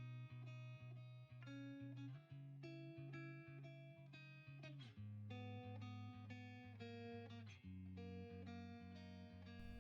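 Quiet instrumental background music: a melody of short, quickly changing notes over a low bass line.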